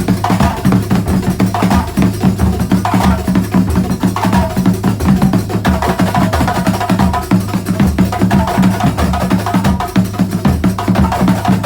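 Terbang frame drums played together in a fast, dense, unbroken percussion rhythm.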